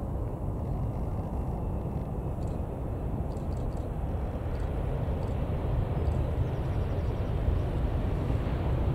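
Airbus A330-200 airliner rolling out on the runway just after main-gear touchdown, its jet engines and landing run making a steady low rumble. The rumble grows somewhat louder and fuller in the second half.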